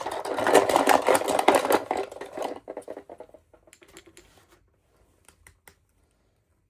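Hands handling something small and crinkly, such as packaging: dense crinkling and clicking for the first two and a half seconds, then thinning to scattered clicks that stop near the end.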